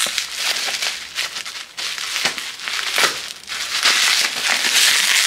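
Plastic packaging crinkling and crackling as it is handled and opened, in irregular bursts that grow denser and louder toward the end.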